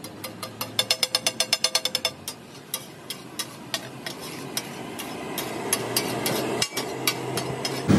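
Metal spatula clacking rapidly on a steel tawa griddle as maghaz (brain masala) is chopped and worked, a quick run of strikes about a second in, then slower, scattered clacks. A sizzling hiss grows steadily louder through the second half as steam rises off the hot griddle.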